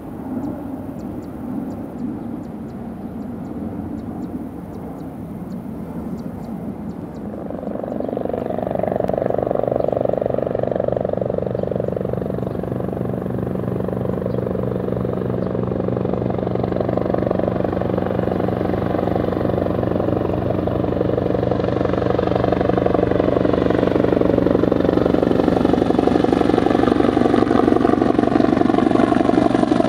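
Helicopter taking off and climbing toward the listener, its rotor and engine sound growing steadily louder, with a rise about eight seconds in and the loudest part near the end.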